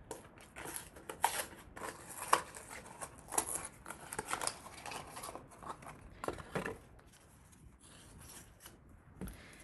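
Foil wrapper of an Alka-Seltzer tablet packet crinkling and tearing as it is opened by hand: a dense run of sharp, irregular crackles that thins out after about seven seconds.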